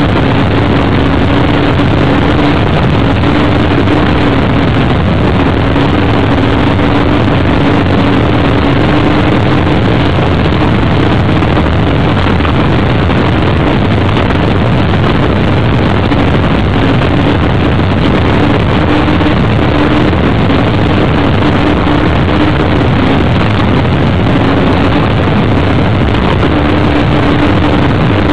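Offshore racing powerboat's engines running flat out at steady speed: a loud, unbroken drone with a held engine note that wavers slightly, mixed with rushing wind and water noise.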